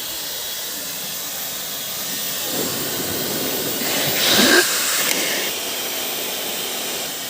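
Dyson HD07 hair dryer running, a steady rush of air with a faint high whine, swelling briefly about four seconds in.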